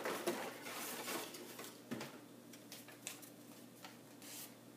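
Hand rummaging among paper slips inside a cardboard box, with faint rustling and a short knock about two seconds in.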